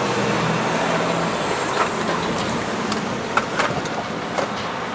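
A heavy vehicle, such as a truck, running past on the road, with a steady rush of road noise and a low engine note that fades after about a second.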